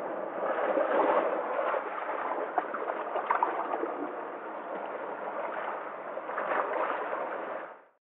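Sea water washing and sloshing among shoreline rocks, with small splashes, swelling slightly as waves come in. The sound fades out at the very end.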